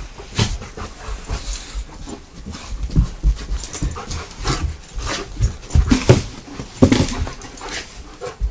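A dog panting right at the microphone, with irregular bumps and rustling as fur rubs against the phone.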